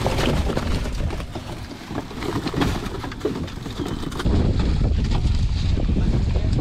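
Sardines being shovelled off a pickup truck's bed into plastic fish crates: a patter of small knocks and scrapes. About four seconds in, heavy wind on the microphone takes over as the loudest sound.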